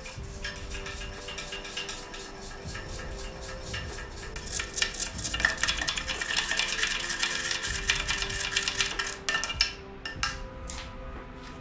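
A wooden-handled brush scrubbing around inside a small metal vase, with rapid scraping and clinking strokes against the metal. The strokes get busier and louder around the middle and thin out near the end.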